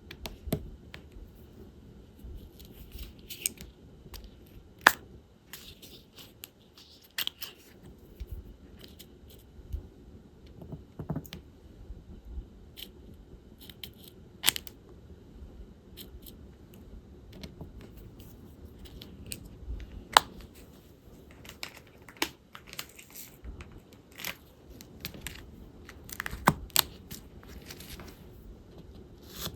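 Diamond painting handwork: irregular light clicks and taps of a drill pen and plastic resin drills against the bead tray and the sticky canvas, with short rustles between them.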